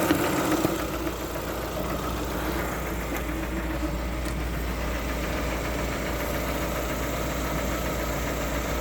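Lada Vesta 1.6 engine idling with a knock that the owner puts down to the cylinder head. It runs a little louder for about the first second, then settles to a steady level.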